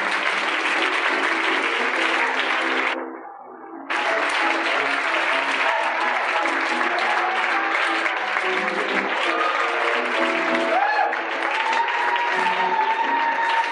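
Audience applauding over music with held notes. About three seconds in, the sound dips and turns muffled for about a second, then comes back.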